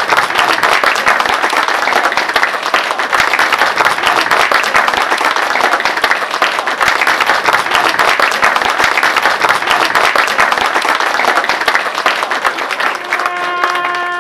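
A crowd applauding steadily. About a second before the end, a trumpet comes in over the clapping with one held note.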